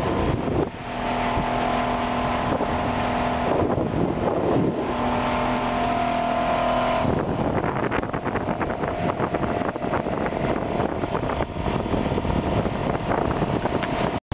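Outboard motor of a small runabout boat running at speed, with wind and water rushing past. Its steady tone is clear for the first half, then is mostly buried under the rushing noise.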